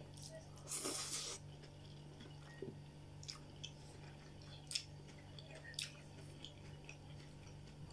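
Close-miked chewing and mouth sounds of a person eating soft stewed cabbage with potatoes. There is a brief louder rush of noise about a second in and a few small clicks after it.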